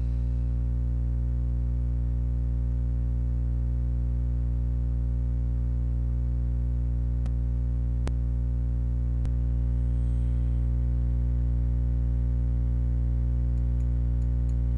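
Loud, steady electrical hum with a stack of overtones, typical of mains hum picked up by a computer recording setup. Three short clicks sound about halfway through.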